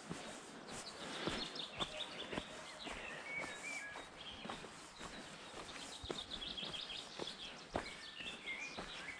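Footsteps on a dirt path strewn with dry leaves and pine needles, at a steady walking pace of about two steps a second, with small birds chirping and twittering.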